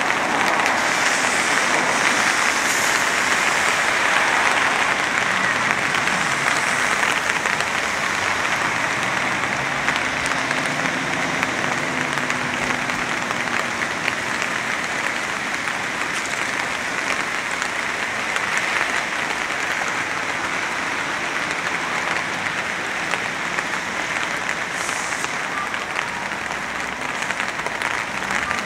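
Steady rain falling, a dense, even hiss of drops.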